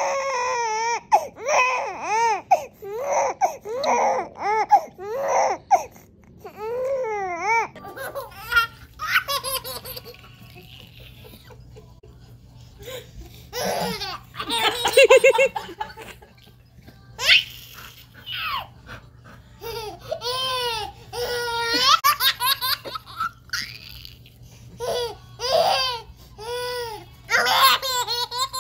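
Babies laughing in repeated spells of short, high giggles that rise and fall in pitch.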